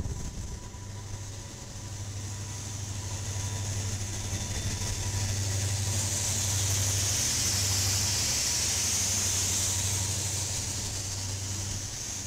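Diesel-electric freight locomotives of a K&O train passing close by: a steady low engine drone with a hiss over it, swelling to its loudest about halfway through as the units go by, then easing off.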